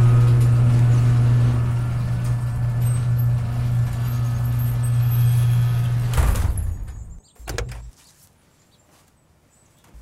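Iso Grifo's V8 engine running steadily with a deep hum, then switched off about six seconds in, dying away over the next second. A short click follows.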